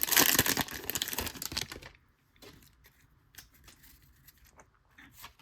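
Foil wrapper of a trading-card pack crinkling and tearing open for about two seconds, then faint scattered clicks of cards being handled.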